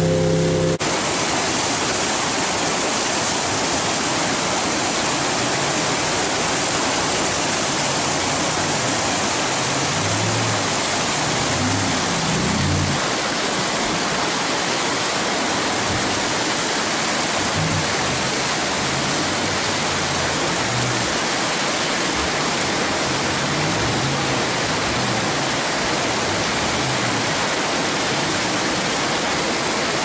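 Whitewater rapids rushing steadily. About a second in, a jet boat's engine note drops away, and the engine then comes back faintly under the rush through the middle stretch, rising and falling in pitch as the boat works against the waves.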